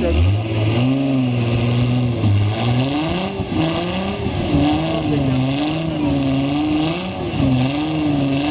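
Off-road trial buggy's engine revving up and down over and over as it crawls over boulders, its pitch rising and falling about once a second.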